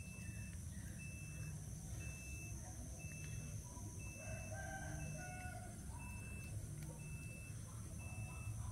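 A high electronic beep, each about half a second long, repeating about once a second over a steady low rumble, with short irregular calls in between.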